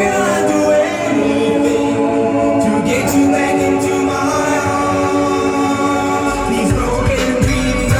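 Music with held, sung vocal harmonies and no beat; a deep bass comes back in about six seconds in.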